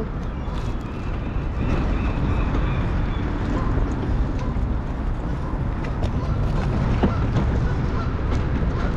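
Steady low rumble of city traffic, with a few faint clicks.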